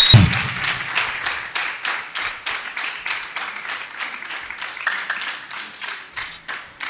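Audience and judges clapping together in a steady rhythm, about four claps a second, slowly fading.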